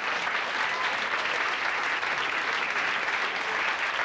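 Club audience applauding, a dense steady patter of many hands clapping.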